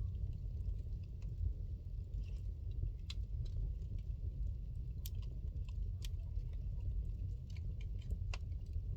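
Wood fire burning in a fireplace: sparse crackles and sharp pops, the loudest about three, five, six and eight seconds in, over a steady low rumble.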